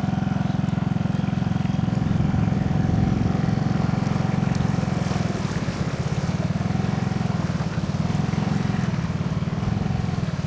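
Motorcycle engine running steadily under way, a dense even low pulsing, with a faint wavering higher tone over it.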